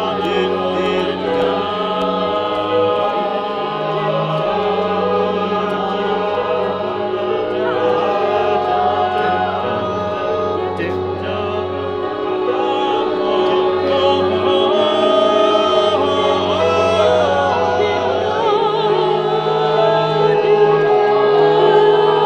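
Live ensemble music: many voices singing held notes together over a bass line that steps between a few low notes.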